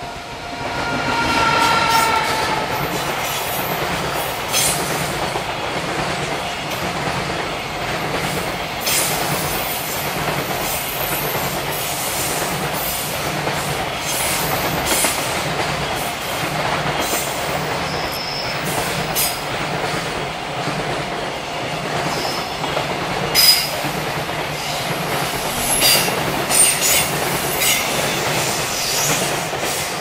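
JR Freight EF210 electric locomotive and its container freight train passing close by. A falling whine is heard as the locomotive goes past. Then the container wagons roll by in a steady rumble, with wheels clattering over rail joints and a few short high wheel squeals.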